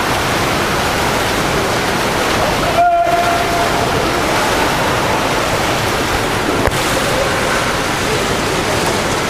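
Steady, loud splashing and churning of water as water polo players swim and fight for the ball, with a short shout about three seconds in.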